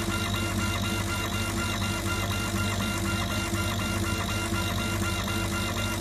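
Stone laser engraving machine raster-engraving a photo: its head's stepper motors whine in a quick, even back-and-forth pattern several times a second over a steady low hum.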